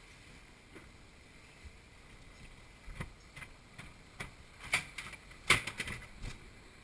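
Bobsled ride car rolling along its track with scattered clicks and clacks from the wheels and rails. A cluster of louder sharp knocks comes about five seconds in as the car reaches the station.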